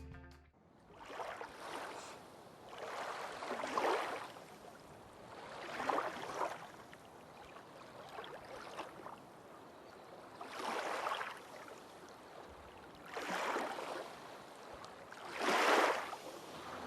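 Small waves lapping against a lakeshore, a soft wash that comes and goes every two to three seconds.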